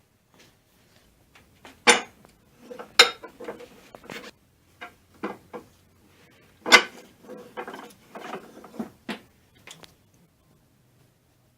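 Metal parts and tools clinking and knocking against each other and a hard surface as they are handled, with three sharper knocks among smaller rattles.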